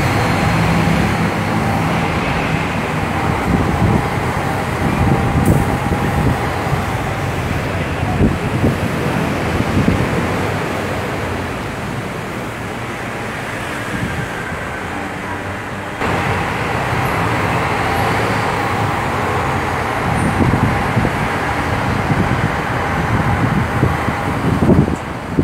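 City street traffic and a bus engine running, heard from the open top deck of a moving sightseeing bus: a steady, loud wash of road noise.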